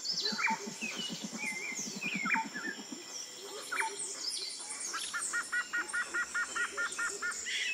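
Tropical nature ambience of birds chirping and calling, with many short falling chirps and a rapid low pulsing call during the first three seconds. A steady high-pitched buzz runs underneath, and a quick repeated two-note chirp comes in from about five seconds to seven.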